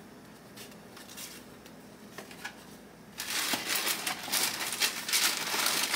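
Packaging crinkling and rustling as new sneakers are handled. There are a few faint clicks at first, then a louder stretch of dense crackling from about three seconds in.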